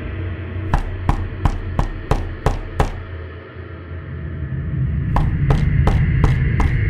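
Two runs of sharp, evenly spaced knocks, about three a second, with a pause between them, over a low rumble.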